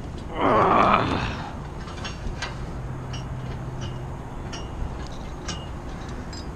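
Small metal hardware clinking and ticking against the tower steel, sharp light clicks at uneven intervals, each with a short ring. A brief loud rushing noise about half a second in is the loudest sound, and a faint steady low hum runs underneath.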